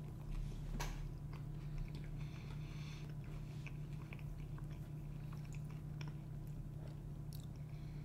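A man chewing a mouthful of pineapple-jalapeño pizza with a crispy crust: faint irregular crunching clicks, one a little louder about a second in, over a steady low hum.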